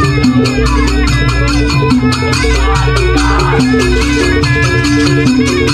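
Music with a fast, steady percussive beat over a bass line and melody.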